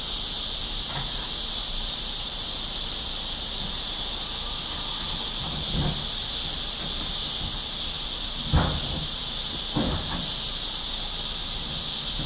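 Steady high-pitched buzzing of a summer insect chorus, even and unbroken, with a few soft knocks about halfway through.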